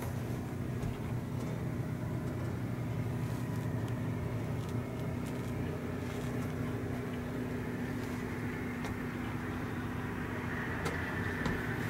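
A steady low mechanical hum with a constant tone, unchanging throughout, with a few faint clicks.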